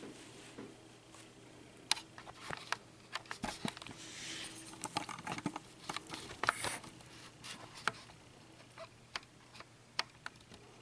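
Small metal lock parts, the pins and springs of a disassembled Euro cylinder, clicking and tapping as they are handled. The light clicks are scattered irregularly, with some quick runs of them.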